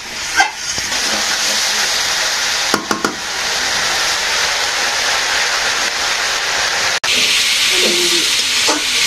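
Vegetables sizzling and hissing in a karahi over a fire, with a steady loud hiss as steam rises from the pan and a few scrapes of the stirring spoon against the pan about three seconds in. The hiss grows stronger after a brief dropout near the end.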